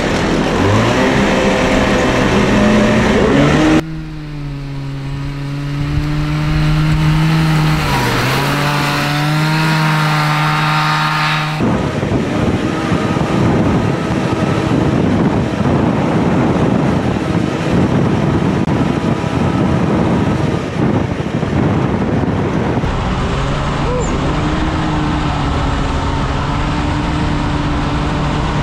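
Kawasaki 440cc two-stroke snowmobile engine driving a go-kart flat out on a top-speed run. The engine note climbs at first, then holds a steady high pitch with a brief dip, heard from onboard with wind noise. The sound changes abruptly at about 4 s and 12 s, and through the middle stretch wind and running noise cover the engine's tone until it comes through steadily again near the end.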